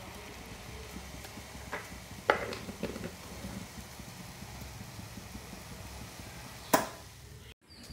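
Water and tea leaves boiling in an aluminium saucepan on a gas burner, a steady bubbling with a few sharp knocks, the loudest about two seconds in and near the end. The sound breaks off abruptly just before the end.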